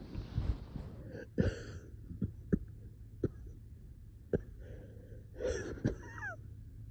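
A person in a coughing fit: a string of short, sharp single coughs a second or so apart, with wheezy, laboured breaths between them, the sign of someone badly short of breath.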